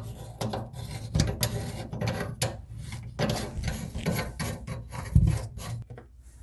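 Rubbing and scraping of white plastic sink-drain parts being handled and fitted together as a P-trap slip joint is worked into place, with cloth brushing close by, and a louder knock about five seconds in.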